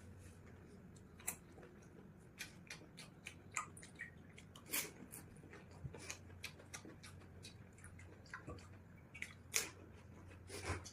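Faint, irregular crunches and clicks of someone biting and chewing crisp pani puri, over a steady low hum.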